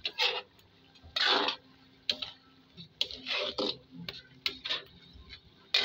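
Spatula scraping and knocking against a wok as vegetables are stirred, in short, uneven strokes.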